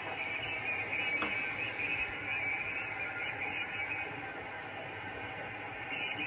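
Steady radio static and hiss, with a brighter hissing band and a few faint clicks.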